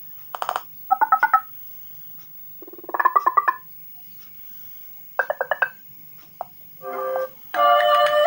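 A Doogee X10 smartphone's loudspeaker playing ringtones: several short bursts of pulsing electronic tones with pauses between them, then about three-quarters of the way through a melodic ringtone tune starts and keeps playing.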